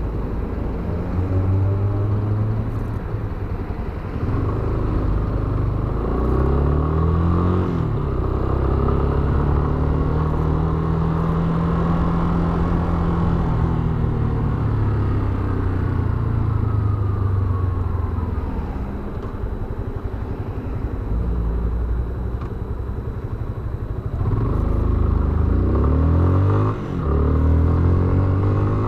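Yamaha Fazer 250 BlueFlex's single-cylinder engine being ridden. The revs climb, drop at a gear change about eight seconds in, hold and then slowly ease off. Near the end the revs rise and fall again, over wind and road noise.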